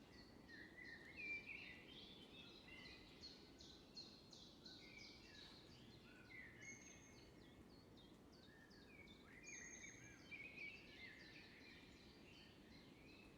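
Faint chirping of many small birds, a dense run of short high chirps and brief whistled notes, over a low steady background hiss.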